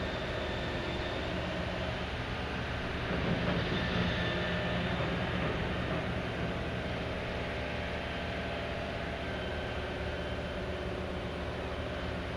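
Heavy diesel machinery of a backhoe dredger running steadily, a deep drone with several held tones that swells a little about three seconds in.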